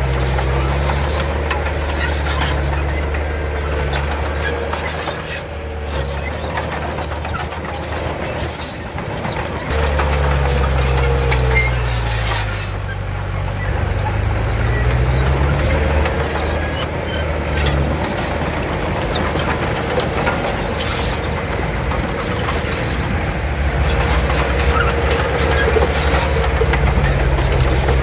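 Komatsu D31 crawler bulldozer's diesel engine working under load, its note dropping about ten seconds in and climbing back over the next few seconds.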